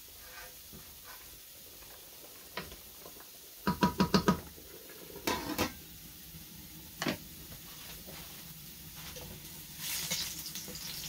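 Stainless steel pan lid set down on a pan: a quick run of ringing metal clanks about four seconds in, then a couple of single metal knocks. Near the end, a slotted spoon stirs in a second pan.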